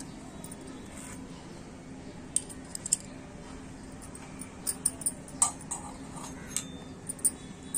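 Small steel spoon clinking against tiny stainless-steel spice cups and a lidded spice box: a scattering of light, sharp metallic clicks, more frequent from about the middle on, over a faint steady low hum.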